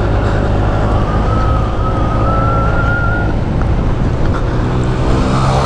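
Honda PCX 150 scooter's single-cylinder engine running steadily while riding, with wind and road noise. A thin high tone rises slightly for about two seconds early in the ride.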